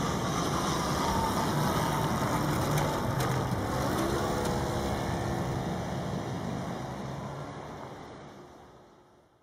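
Cars driving over a railway level crossing over a steady low rumble, one engine rising in pitch as it pulls away about four seconds in. The sound fades out over the last few seconds.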